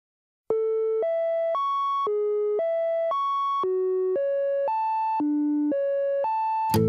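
Opening of a Greek pop song: a plain electronic beep tone plays twelve even, half-second notes as four rising three-note figures. Fuller music with several instruments comes in right at the end.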